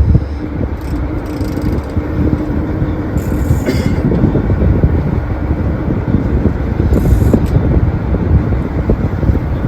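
Fishing boat under way offshore: a steady engine drone under loud rumbling wind and water noise, with two brief hisses about three and a half and seven seconds in.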